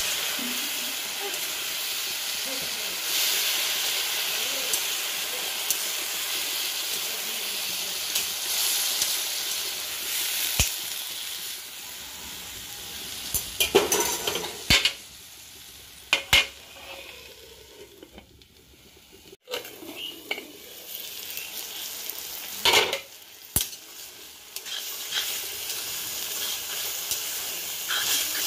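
Leafy greens sizzling in oil in an iron kadai while a spatula stirs them, scraping and knocking against the pan. The sizzle is steady at first and dies down about halfway, with a few sharp scrapes of the spatula in the second half.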